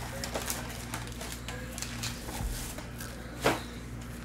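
Hands opening a cardboard trading-card box and handling its foil-wrapped packs: scattered crinkles and clicks, with one louder, sharp crackle about three and a half seconds in.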